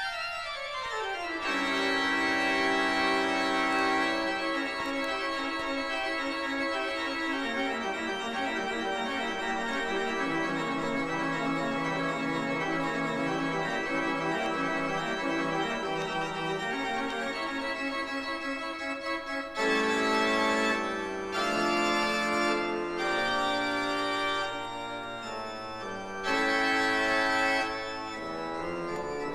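Pipe organ playing: a fast descending run, then long held full chords whose bass notes step lower, with new chords entering about two-thirds of the way through.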